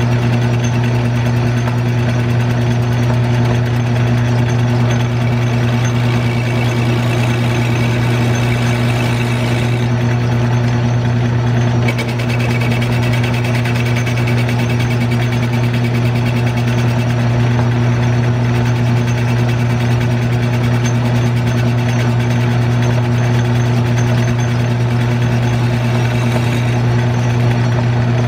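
Electric-motor-driven metal lathe running with a steady low hum.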